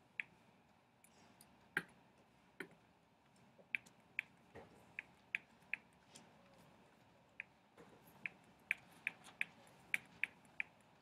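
Short, sharp plastic clicks, about seventeen at irregular intervals and bunching closer together in the second half, from a stylus tapping its drawing surface with each stroke of handwriting on a computer.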